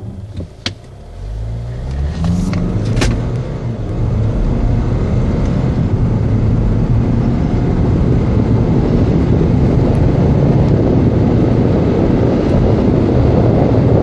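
Kia Sportage accelerating hard from low speed to about 115 km/h, heard inside the cabin. The engine note rises in pitch over the first few seconds, then engine, tyre and wind noise build up and hold loud as speed climbs. A few sharp clicks sound in the first three seconds.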